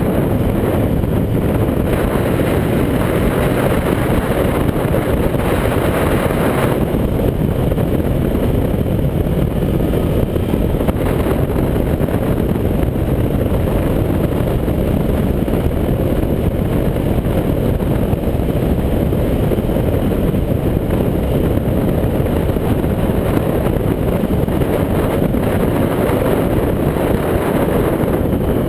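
Motorcycle riding at a steady cruising speed: the engine running evenly under heavy, low wind rumble on the microphone.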